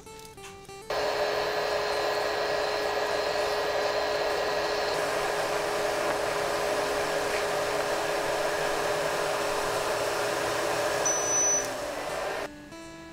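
Coconut milk with pandan leaves heating to a boil in a wok on a cooktop: a steady rushing noise with a faint hum. It starts abruptly about a second in and stops abruptly shortly before the end.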